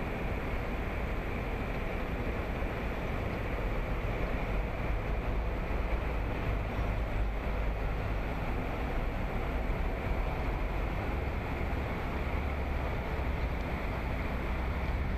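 Steady street traffic noise from cars driving across a cobbled square, with a low rumble of wind on the microphone.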